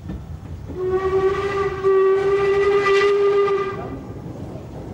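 LMS Stanier 8F 2-8-0 steam locomotive sounding its whistle in one steady blast of about three seconds, starting under a second in, over the rumble of the approaching train.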